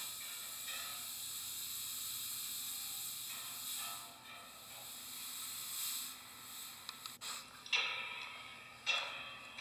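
Steady hiss, with a sharp click about seven seconds in and two short bursts of noise near the end.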